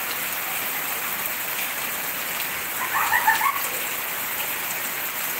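Heavy rain falling steadily, an even hiss of downpour. About three seconds in, a brief louder burst of short higher-pitched sounds cuts through the rain.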